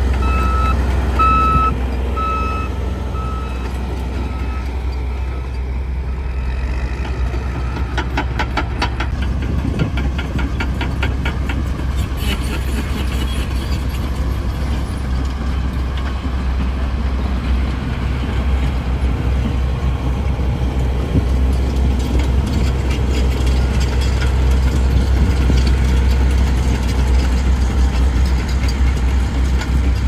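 Mobile rock crushers and heavy diesel machinery running with a steady deep rumble. A reversing alarm beeps four times, about once a second, at the start, and a rapid rattle comes about eight seconds in, lasting a couple of seconds.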